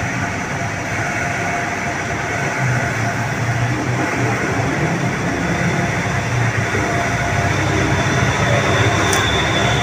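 Steady rumble and hiss of a running machine, with a low hum under it. A brief high chirp sounds about nine seconds in.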